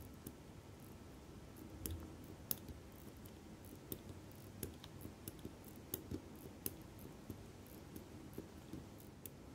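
Faint, irregular small clicks and taps of watchmaker's tools, tweezers and the like, handling small metal parts of a Citizen 8110A chronograph movement.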